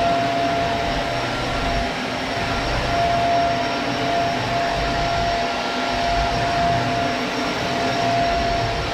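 Shark Rotator Pet upright vacuum cleaner (ZU102) running steadily, its motor giving a constant airy hiss with a steady whine.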